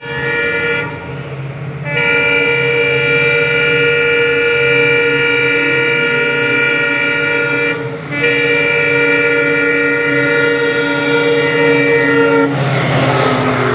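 Passenger train locomotive's air horn sounding as the train approaches: a short blast, then two long held blasts of several seconds each, a chord of several steady tones. Near the end the horn stops and the loud rush and rumble of the train running past takes over.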